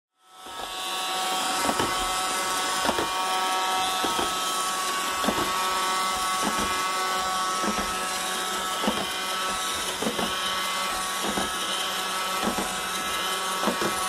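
iRobot Roomba 532 Pet Series robot vacuum running over carpet with a steady high whine and a knock a little more than once a second. This is the sound of its brushes clogged with dirt inside the rollers, the fault behind its Error 2.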